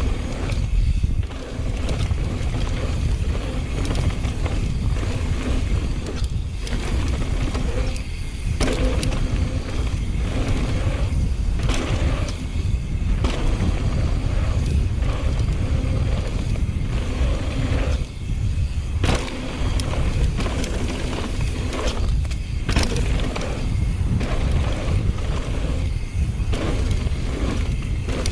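Wind rushing over the microphone and mountain bike tyres rolling fast over a dirt trail, with frequent clatter and knocks from the bike over bumps.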